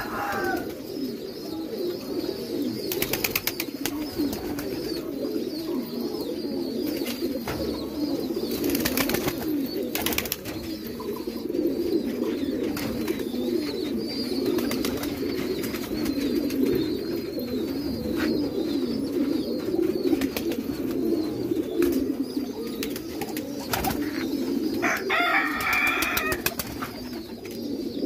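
A flock of domestic pigeons cooing together, a continuous low, churning chorus of overlapping coos, with a few short sharp clicks among them.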